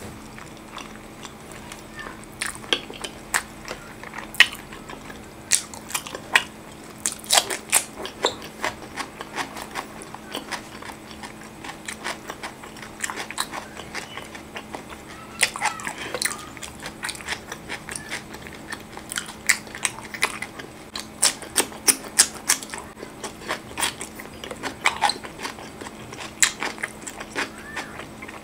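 Close-miked chewing and wet mouth smacks of a person eating rice and spicy chicken in tomato sauce by hand, with many irregular sharp clicks.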